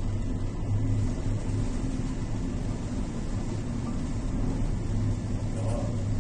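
Steady low rumble and hum on board a dry cargo ship in a storm: the ship's engine running, with wind and heavy seas breaking against the hull.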